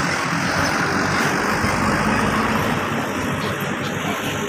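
Diesel engines running steadily as a Hyundai crawler excavator works its boom over a dump truck, loading it, with the trucks' engines idling.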